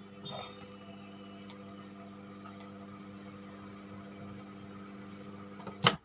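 Godrej microwave oven running with its newly replaced magnetron heating a cup of water: a steady electrical hum. Near the end comes a loud click as the door is pulled open, and the hum cuts off.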